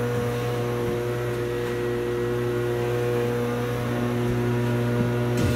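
A steady low hum with a few overtones, unchanging throughout.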